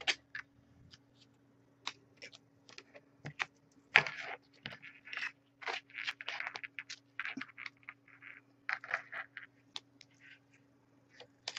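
A craft knife cutting through two layered strips of duct tape on a cutting mat: irregular short scrapes and crunches, the sharpest about four seconds in, over a faint steady hum.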